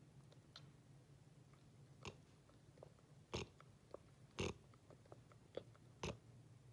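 A sleeping black Labrador retriever's short snorting breaths and mouth noises, five or so at irregular gaps, the loudest two a little past halfway, over a faint low hum.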